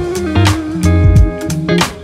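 Instrumental background music: guitar over bass notes and a steady drum beat.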